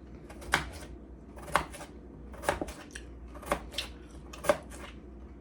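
Knife slicing a peeled cucumber into thin rounds, each cut ending in a sharp click about once a second.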